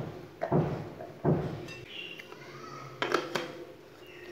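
Plastic mini food-chopper bowl being handled. There are a few dull knocks as torn bread pieces go in, then sharper plastic clicks about three seconds in as the lid is fitted on.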